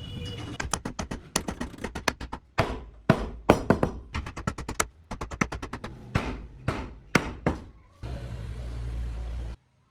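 Repeated knocks of wooden joinery work: quick light taps for a couple of seconds, then heavier, more spaced strikes. Near the end a low steady hum runs for about a second and a half and stops suddenly.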